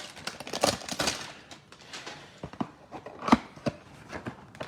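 Hands opening a cardboard trading-card hanger box and handling its contents: soft rustling with scattered sharp clicks and taps, the loudest a little past three seconds in.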